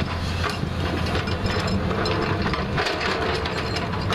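JCB 3DX backhoe loader's diesel engine running steadily under work, with scattered clicks and knocks of the digging gear on soil and rock.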